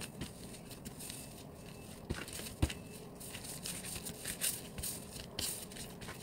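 Dragon fruit bread dough being kneaded by hand on a tabletop: irregular soft squishes and pats of the still slightly wet dough, with a sharper thump about two and a half seconds in.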